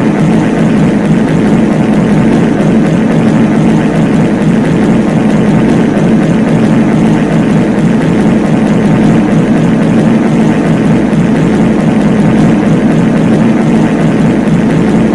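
Many copies of the reverb fart sound effect stacked on top of each other, merging into one loud, steady drone with no single fart standing out.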